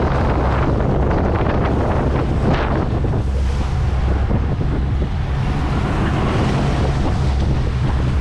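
Wind buffeting the microphone on a fishing boat at sea, with a steady low rumble beneath and rushing water.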